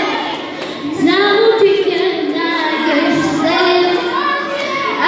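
A young girl singing into a handheld microphone. Her voice dips briefly near the start, then comes back strongly on a rising note about a second in and carries on in sustained, sliding phrases.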